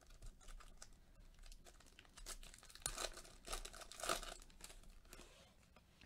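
Foil wrapper of a 2017-18 Panini Prizm basketball card pack crinkling and tearing as it is ripped open and the cards are slid out: a faint run of crackles, loudest about three to four seconds in.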